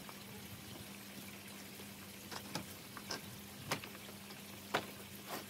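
Scattered light knocks and footsteps as a plastic shed floor panel is carried and set down on paving slabs, about six separate knocks, the loudest a little under 4 s in and just under 5 s in, over a faint steady hum and hiss.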